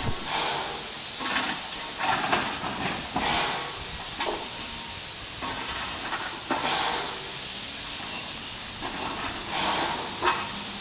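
Standing steam locomotive (Puffing Billy's NA-class tank engine 6A) hissing steam at rest: a steady hiss with uneven louder puffs and surges every second or so.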